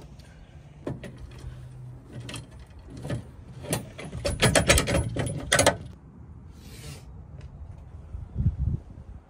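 Metal clicking and rattling as a metal bed-stiffener bracket and its bolts are handled and fitted against a pickup's bed wall. A quick run of clicks comes about halfway through and is the loudest part, with a few scattered knocks before and after.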